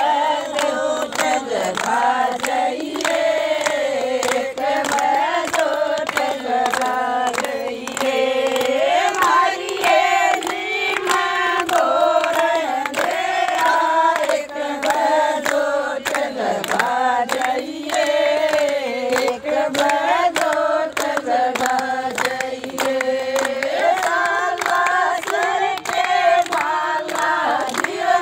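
A group of women singing a Hindu devotional bhajan together, with steady rhythmic hand clapping keeping the beat.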